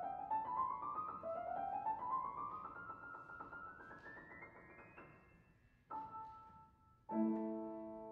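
Grand piano playing the closing solo of an art song: quick upward-sweeping runs that fade away, then a soft chord about six seconds in and a louder final chord a second later, left to ring and die away.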